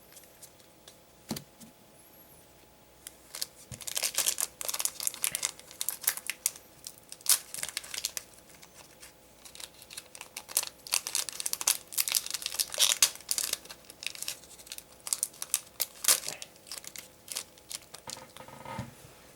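Foil booster-pack wrapper of a trading-card pack crinkling and tearing as it is opened, in spells of dense crackling with scattered clicks between.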